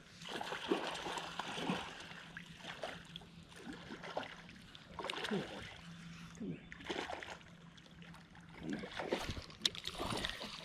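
River water splashing and sloshing in irregular bursts.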